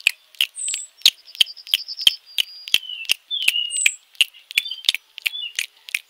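Guinea pig chewing carrot sticks, sharp crunches about three a second, with high bird-like chirps, short trills and quick falling whistles in between.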